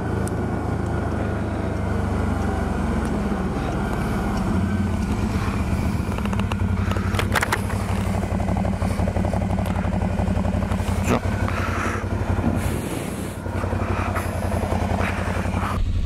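TGB Blade 1000 quad's V-twin engine running as the bike slows, pulls off the road and comes to a stop, still running. Wind noise on the helmet microphone and a few clicks and knocks are heard over it.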